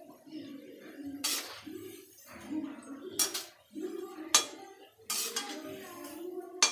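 A metal slotted spoon scraping and clinking against a steel kadhai about five times at uneven intervals as frying kofte are turned in hot oil, over a steady background hiss.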